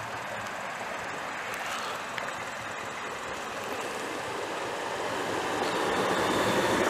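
Steady rushing noise of road traffic and wind, growing louder over the last couple of seconds.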